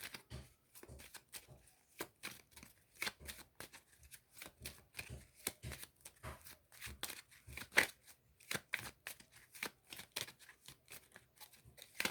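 A deck of Kipper fortune-telling cards being shuffled by hand: quick, irregular flicks and slaps of card stock, several a second.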